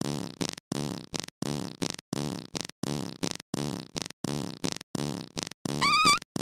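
Fart sounds chopped into short, abruptly cut bursts repeating a little over two a second. Near the end a brief high wavering squeal joins in.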